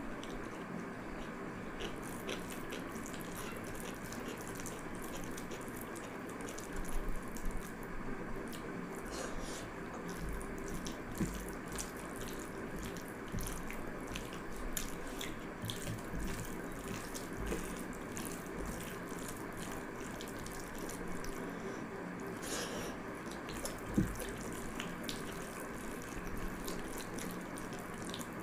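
A hand squishing and mixing pakhala bhaat, cooked rice soaked in water, in a glass bowl. Many small wet clicks and sloshes of water among the rice, with a few louder knocks, over a steady background hum.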